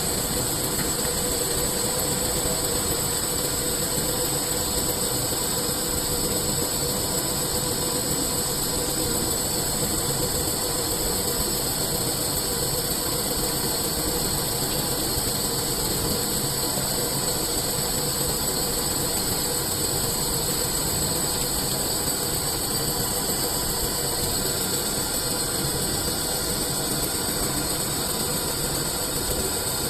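CNC lathe machining a steel cylinder toward a sphere: a steady, unbroken machine noise with several constant whining tones, one of them high-pitched.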